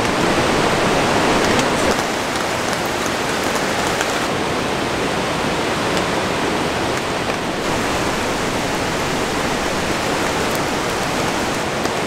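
Steady rushing of a mountain valley stream, mixed with falling rain, an even hiss with a few faint ticks in it.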